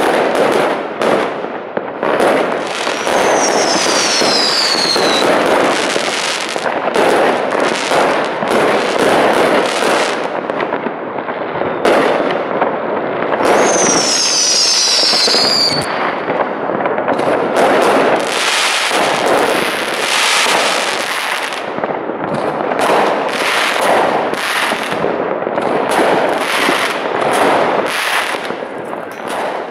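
New Year's fireworks going off without a break: many rockets and firecrackers banging and crackling in rapid succession. Twice, a whistling firework lets out a falling whistle lasting about two seconds.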